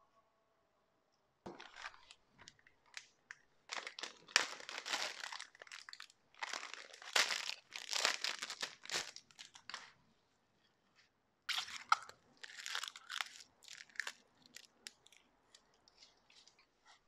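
Clear plastic packaging bag crinkling and rustling in irregular bursts as a new wheel centre cap is unwrapped by hand, with a short pause about ten seconds in and only faint rustles near the end.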